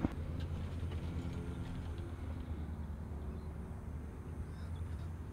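A low, steady engine-like hum with a faint rumble, and a light click right at the start.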